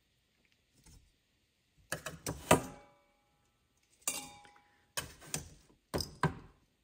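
Metal tongs knocking and clinking against a sheet pan and a stainless steel pot as roasted beef bones are lifted and dropped in. There are several sharp clanks, some with a brief metallic ring after them: one group about two seconds in, one at about four seconds, and more over the last two seconds.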